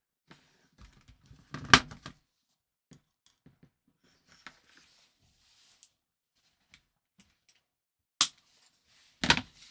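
Side cutters and a thin metal wire being handled on a workbench: scattered small clicks and taps, with one loud sharp snap about two seconds in and another sharp click near the end.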